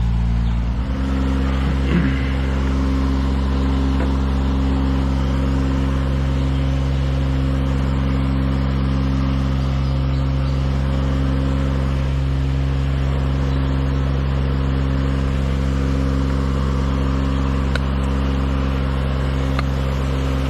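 Engine of a compact tracked lift running steadily; its speed steps up about a second in, then holds.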